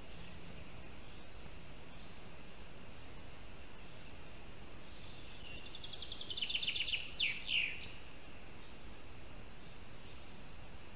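A small songbird singing once in the surrounding forest: a fast trill of repeated notes ending in a couple of quick downward-sweeping notes, about six seconds in. Faint, thin, high calls repeat about once a second over a steady hiss from the nest-camera microphone.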